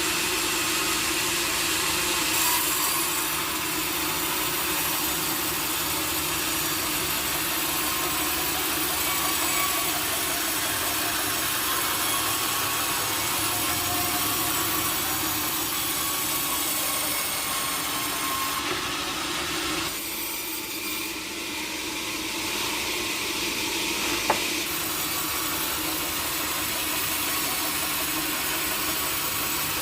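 Sawmill saw running and cutting through teak, a steady noisy machine sound. The cut eases briefly about twenty seconds in, and a single sharp click comes a few seconds later.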